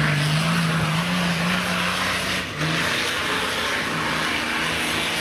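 Off-road 4x4's engine running hard under load on a muddy wooded slope, its note holding steady, then breaking off briefly about halfway before picking up again.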